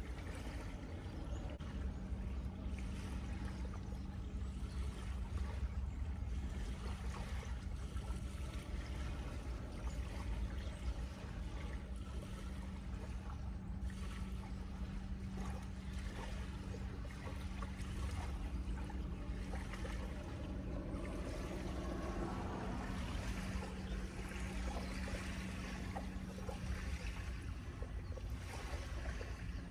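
Wind rumbling on the microphone, with a steady low hum through most of it that cuts out near the end.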